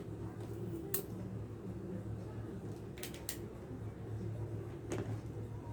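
A few small sharp clicks and taps from hands and tools at work on amplifier wiring, spaced a second or two apart, over a steady low hum.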